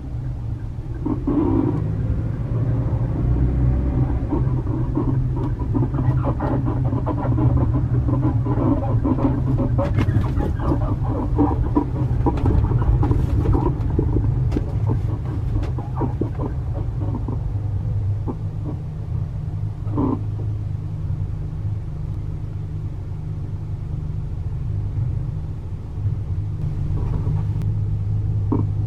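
Camper van on the move, heard inside the cabin: steady road and engine drone overlaid by an irregular creaking, squeaking noise from under the floor that sounds like an animal crying. The noise is the helper leaf spring (増しリーフ) of the rear suspension, later swapped for a countermeasure part.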